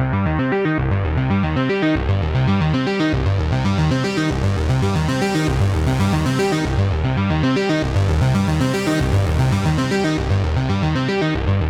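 Elektron Analog Four MK2 analog synthesizer playing a sequenced patch: a fast, evenly repeating pattern of bass and plucky notes. The sound brightens and dulls again twice, as the filter opens and closes.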